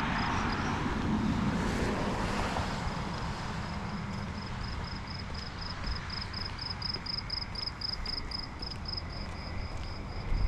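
A vehicle passing, its noise swelling and then fading over the first few seconds, with a high, even chirp repeating about four times a second throughout.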